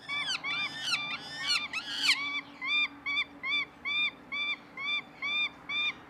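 Downy falcon chicks calling: overlapping shrill, harsh calls for about the first two seconds, then a steady run of short repeated shrill calls, about two or three a second.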